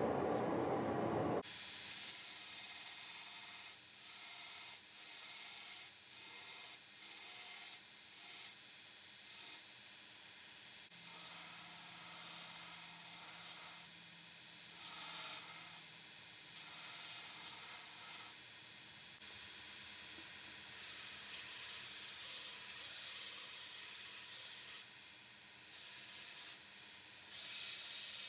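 A low rumble for the first second and a half, then a belt grinder's abrasive belt grinding a steel chisel blank: a hiss that swells and drops again and again as the piece is pressed to the belt and lifted off.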